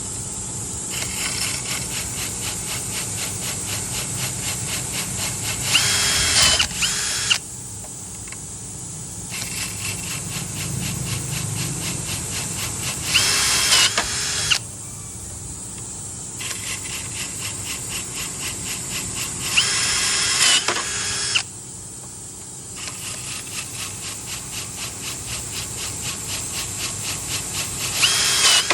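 M21-KB1385PRO cordless drill running in its pulse mode, boring into hard Dekton sintered stone. Rapid, even pulsing comes in cycles of about seven seconds, and each cycle ends in a loud, high-pitched squeal lasting about a second, four times in all.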